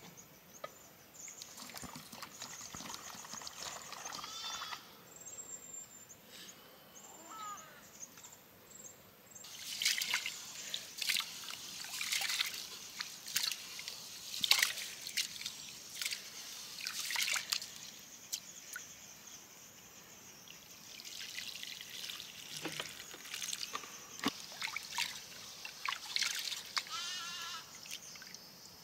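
Water trickling and splashing, with a run of sharper splashes from about ten seconds in.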